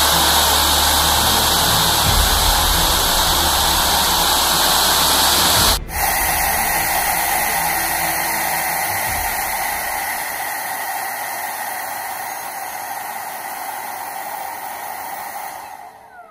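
Electric 'turbine' of an RC pulling tractor, electric motors on 4S power in a turbine can, running with a steady jet-like whooshing hiss over a low rumble. After a short break about six seconds in, the rumble dies away and the hiss gradually grows quieter.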